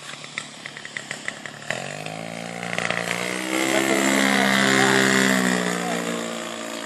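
The engine of a large-scale radio-controlled Piper J3 Cub model buzzing as the plane makes a low pass. It grows louder to a peak about halfway through, then fades as it flies away, its pitch dropping. A series of light ticks comes before the engine swells in.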